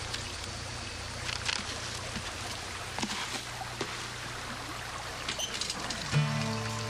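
Steady background hiss with a low hum and a few faint ticks. About six seconds in, music with long held notes comes in.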